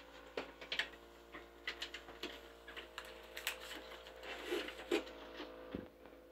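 Clear plastic drain bags crinkling and clicking as they are handled and hung, over the steady hum of a Baxter Amia peritoneal dialysis cycler priming its lines. The hum drops in pitch and stops near the end.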